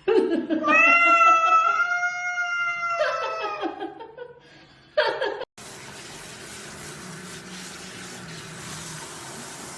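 A cat meowing in long, drawn-out calls, followed by a shorter call about five seconds in. Then an abrupt cut to a steady hissing noise.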